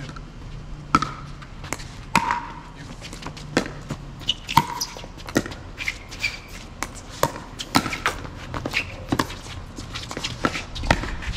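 Pickleball rally: sharp pops of paddles striking the plastic ball and the ball bouncing on the court, a hit roughly every second, with short squeaks in between.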